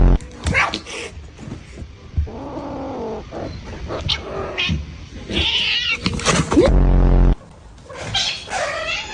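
Domestic cat caterwauling: several drawn-out yowls that bend in pitch, with a loud low rumble about seven seconds in.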